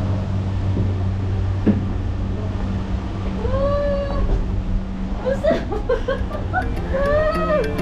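A cat meowing twice, each meow a long call that rises and falls in pitch, over a steady low hum. Music with light clicking percussion comes in during the second half.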